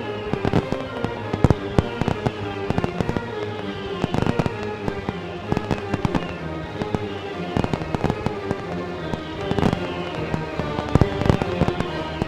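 Fireworks bursting and crackling in quick, irregular bangs over the display's orchestral music.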